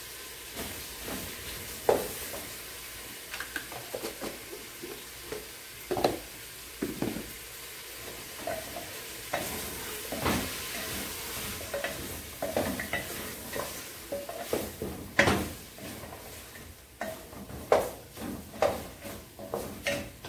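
Spoon stirring and scraping meat being sautéed in a pot, with irregular scrapes and knocks against the pot over a steady sizzle.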